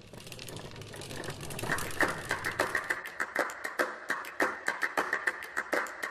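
A fast run of sharp clicks, about three to four a second, fading in from silence and growing louder, over a faint steady high tone.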